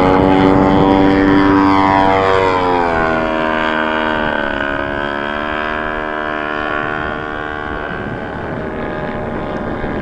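Engine and propeller of a radio-control model aircraft passing and climbing away at high power. The note drops in pitch about three seconds in as it goes by, then holds steady while fading.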